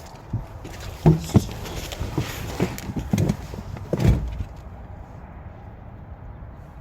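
A run of irregular knocks and thumps, with a few sharp clicks, the loudest thump about four seconds in.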